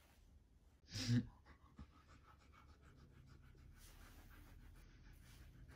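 A short, low vocal grunt about a second in, then a husky's faint, quick rhythmic panting.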